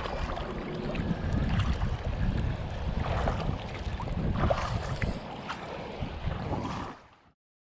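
Wind buffeting the microphone at the lakeshore, a steady low rumble with a few faint ticks over it, cutting off abruptly about seven seconds in.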